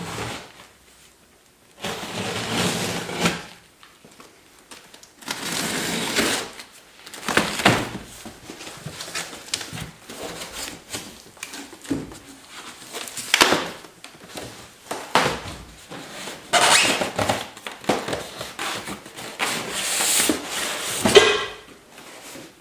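Utility knife slicing through the cardboard and packing tape of a large box in several separate scraping strokes, then cardboard flaps pulled open.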